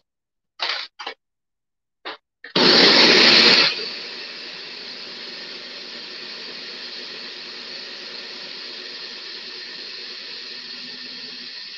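Ninja countertop blender starting up about two and a half seconds in, loud for the first second, then settling into a steady, quieter whir as it purees avocado, sour cream and hummus into a smooth crema.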